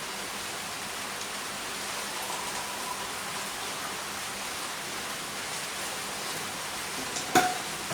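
Steady, even hiss of water, with a single sharp knock near the end.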